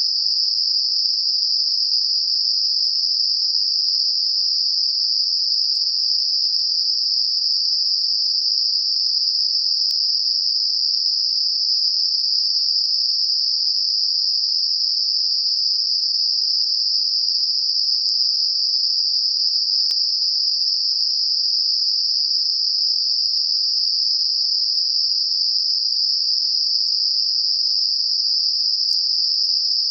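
Steady, high-pitched hiss of computer-generated narrow-band noise centred on 5 kHz with a bell-curve (Gaussian) filter, made as a tinnitus masker. It holds an even level without any change.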